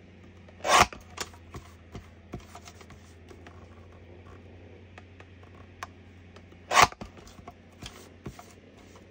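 Card being cut: two short rasping strokes about six seconds apart, with light taps and clicks of handling in between.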